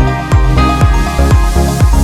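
Electronic dance music: a steady kick drum about twice a second under sustained synth tones.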